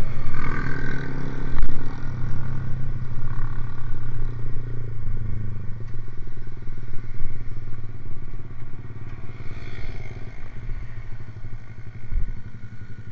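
Motorcycle engine with a racing exhaust running steadily with a low, even note, louder for the first few seconds and fading somewhat after about five seconds. A single sharp knock sounds about a second and a half in.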